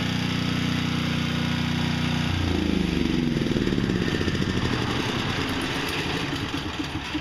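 Portable generator's Briggs & Stratton-built engine running steadily, then switched off about two seconds in and sputtering as it slows, fading away near the end.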